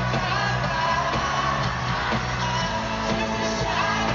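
A live pop-rock band playing with lead vocals in an arena, heard from among the audience.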